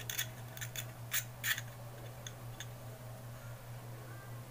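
Small sharp clicks and scratches of a Zippo lighter insert and its cotton packing being handled and pressed down, several in the first second and a half, then only a few faint ones, over a steady low hum.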